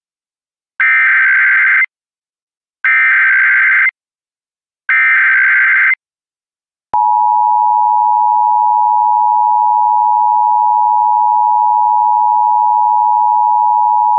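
Emergency Alert System tones for an AMBER Alert. Three one-second bursts of the SAME digital header come about two seconds apart, each a buzzy warbling data tone. About seven seconds in, a click starts the steady two-tone EAS attention signal, which holds unbroken.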